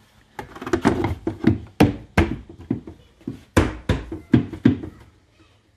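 Plastic tail-light housing of a Ford Focus knocking and clicking against the car body as it is worked back into its slot: a quick run of sharp knocks, the loudest about two and three and a half seconds in.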